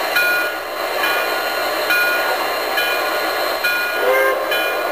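The sound system of an M.T.H. 384E Blue Comet model steam locomotive playing a locomotive bell, struck about once a second, over a steady hiss.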